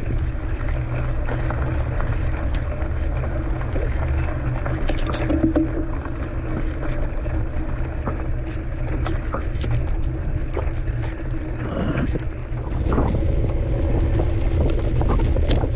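Mountain bike riding over a wet gravel road, heard through a bike-mounted action camera: a continuous low wind rumble on the microphone, with scattered clicks and rattles from the tyres and bike. About twelve seconds in, the sound changes and grows louder.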